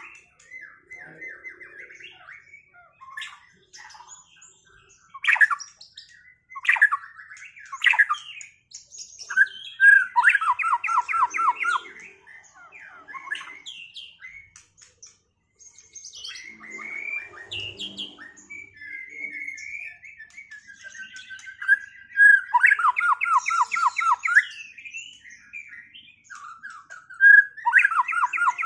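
White-rumped shamas (murai batu) singing: a varied run of whistles, chirps and harsh calls, broken three times by loud, fast rattling trills of about ten notes a second.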